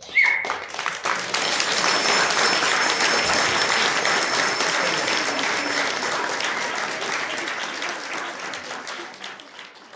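Audience applauding: the clapping starts suddenly, is at full strength within about a second, then slowly dies away near the end.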